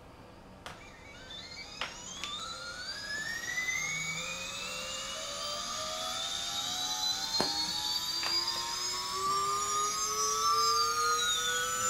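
T-Motor F40 Pro II 2400KV brushless drone motor spinning up under a slow automated throttle ramp for a KV measurement: a whine that climbs steadily in pitch and grows louder, with a few sharp clicks along the way.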